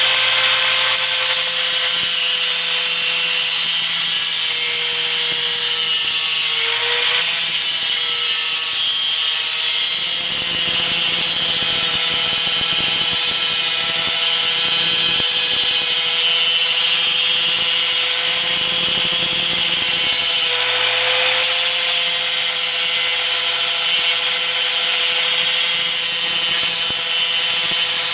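A 4-inch angle grinder running steadily, its disc grinding along the cutting edge of a steel lawn mower blade to sharpen it: a constant high whine over a harsh grinding hiss. The pitch dips briefly about seven seconds in.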